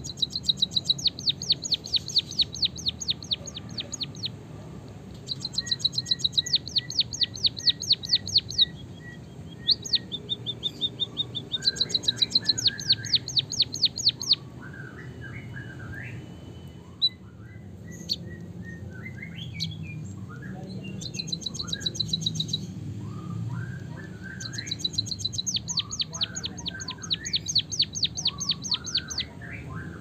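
Caged white-headed munia singing a canary-style rolling song: rapid trills of evenly repeated high notes come in several bursts of a few seconds each, with softer, lower twittering notes between them.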